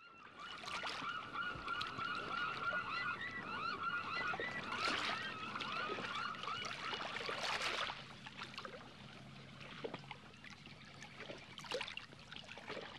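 Birds calling in rapid, repeated short notes over a steady noisy background, fading to fewer, quieter calls after about eight seconds.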